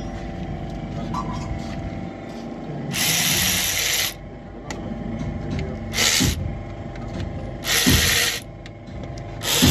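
Cordless electric ratchet whirring in four short runs as it drives the bolts of an automatic transmission oil pan; the first and third runs last about a second, the second is brief, and the fourth starts near the end.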